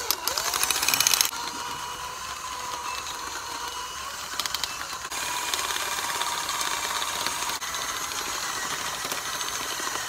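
Cordless drill running continuously with a steady motor whine. It is loudest for about the first second, then runs on more evenly and gets a little louder from about four seconds in.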